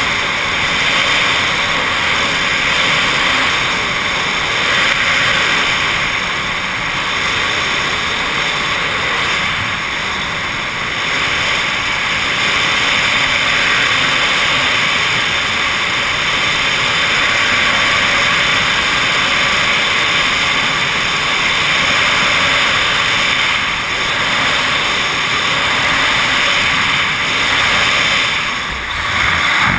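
Loud, steady rush of freefall wind over a helmet-mounted camera's microphone, easing briefly near the end.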